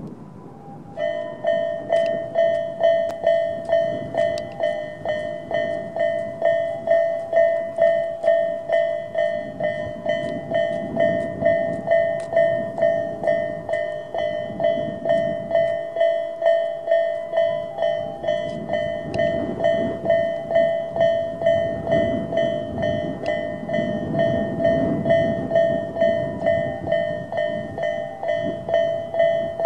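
Japanese railway level-crossing warning bells (Tobu 'sound A' electronic bells, both sides) start about a second in and ring steadily in an even rhythm of roughly one and a half strokes a second. Beneath them a passing Tobu 10000-series electric train's rumble swells and fades.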